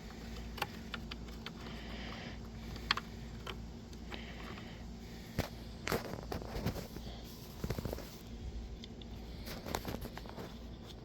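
Small plastic parts clicking and tapping as a replacement outboard primer knob is handled and fitted together by hand, with irregular clicks, busiest midway, over a steady low hum.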